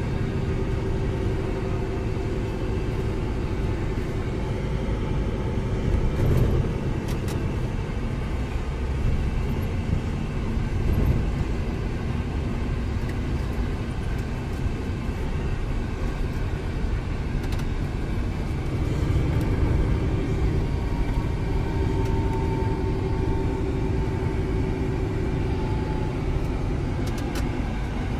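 Scania truck running downhill, heard inside the cab: a steady diesel engine and road rumble with a faint whine that drifts in pitch, and a few brief clicks.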